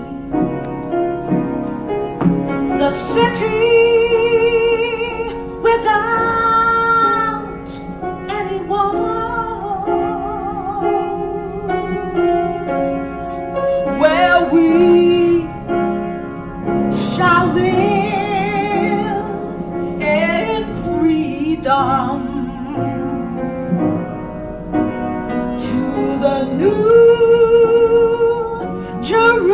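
A woman singing solo with wide vibrato on long held notes, over a piano accompaniment.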